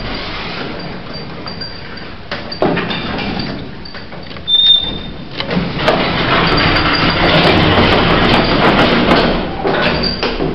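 A 1980s hospital passenger lift in operation: a few clunks, a short high beep about four and a half seconds in, then a long steady rushing run of noise from the lift's doors and machinery.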